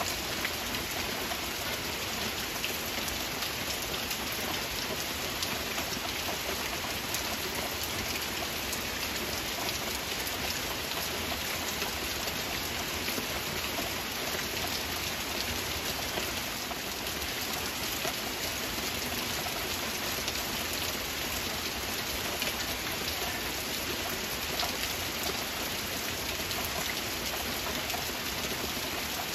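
Steady rain falling, a dense, even patter of drops with no let-up.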